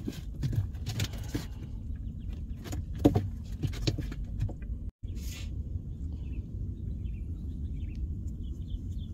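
Steady low rumble of wind on the microphone, with a few short knocks and rustles from handling in the first half. After a cut about halfway, faint bird chirps sound now and then.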